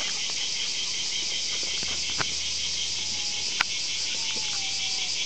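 A dense, steady chorus of insects in the woods, high-pitched and even throughout. Two sharp clicks break through it, the louder one about three and a half seconds in.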